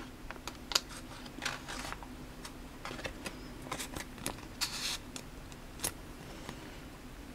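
Foil booster-pack wrapper being torn and crinkled, then trading cards sliding and flicking against each other in the hands. Scattered short rustles and clicks, with a longer rustle about four and a half seconds in.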